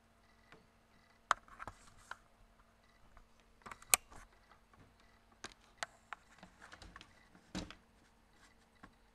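Irregular clicks and knocks of small parts and tools being handled, the sharpest about one and four seconds in, as a PLC is being wired to an incremental encoder.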